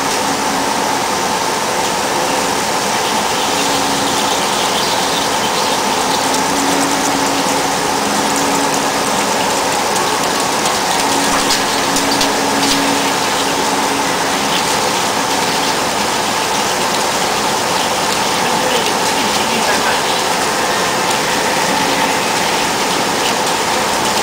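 DAMA HDC-1640 high-speed CNC drilling center drilling a metal plate under flood coolant: a steady rush of coolant spray and cutting noise, with a steady high hum. A lower tone comes and goes every few seconds.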